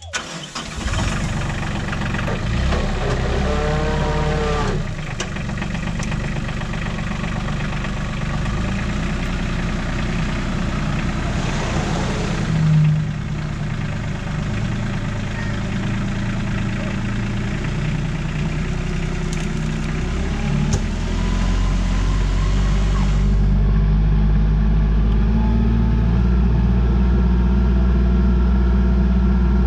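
Skid steer loader's engine running under load as it pulls on a chain to lift a stump, revving up and down; it runs harder and louder over the last several seconds.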